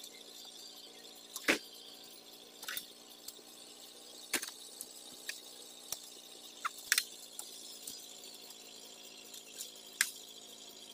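Oil palm fruit bunches being lifted on a spiked pole and thrown up onto a lorry's load bed: about seven sharp knocks and clatters at irregular intervals, the loudest a little over a second in, over a steady faint hum.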